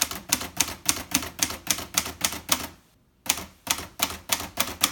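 1969 Hermes Rocket manual portable typewriter typing quickly, its typebars striking the platen about four times a second. There are two runs of keystrokes with a short pause a little past halfway.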